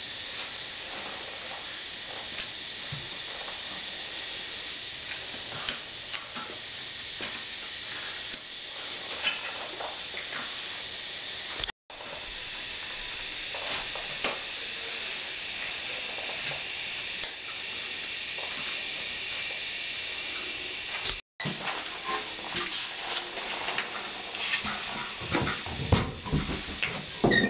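A steady hiss that cuts out briefly twice, with faint knocks from handling a plastic-wrapped ceramic toilet cistern. Near the end come several louder clunks as the cistern is set down onto the toilet pan.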